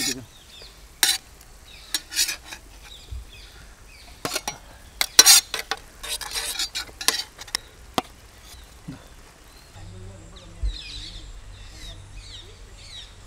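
Metal spatula scraping and clanking on a large flat griddle (tava) while pav buns toast in butter, with a faint sizzle. The sharp, irregular strokes come over the first eight seconds or so.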